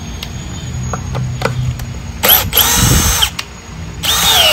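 Milwaukee M12 cordless drill/driver driving a long wood screw into a wooden block, in two runs of about a second each with a motor whine. The second run drops in pitch near its end as the screw seats.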